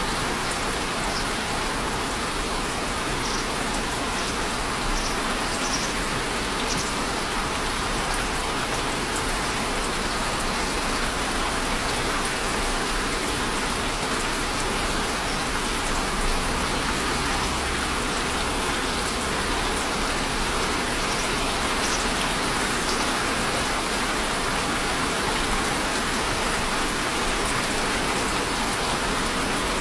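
Steady rain falling, an even hiss with a few sharper drops ticking now and then.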